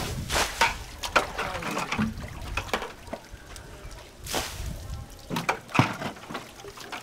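Water splashing and sloshing, in irregular bursts with scattered knocks.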